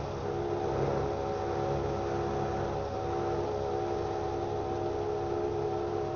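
Petrol dispenser pumping fuel through the nozzle into a motorcycle's tank: a steady pump hum with a few held tones over the hiss of flowing fuel.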